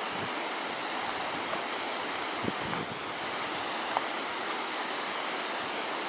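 Mountain river rushing steadily over its pebble bed, with faint high chirps above it and a few soft low bumps of wind on the microphone.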